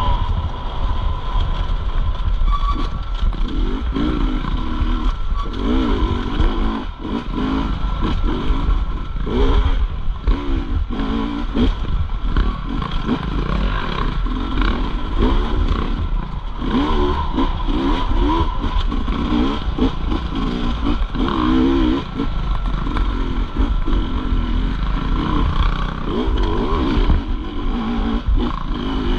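Off-road dirt bike engine being ridden hard, revving up and falling back over and over as the throttle is opened and chopped, over a heavy low rumble.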